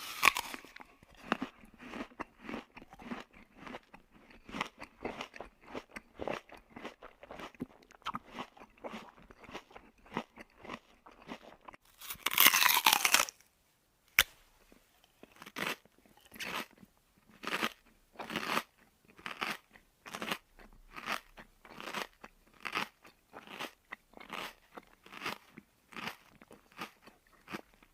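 Crunchy chewing sound effect: many short bites and crunches in quick succession, broken about twelve seconds in by a louder noisy burst and a sharp click, then slower, more evenly spaced crunches.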